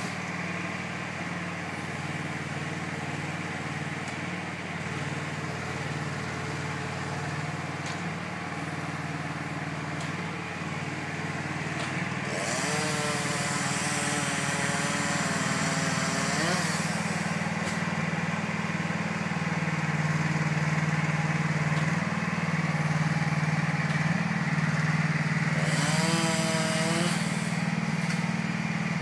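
A truck engine running steadily. A chainsaw revs up and cuts twice, for about four seconds roughly halfway through and briefly again near the end.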